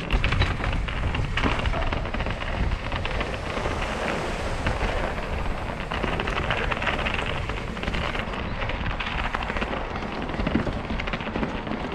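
Cannondale mountain bike ridden fast over a rocky trail: a steady rumble of tyres on rock and gravel, with constant clattering and knocks from the bike, and wind buffeting the microphone.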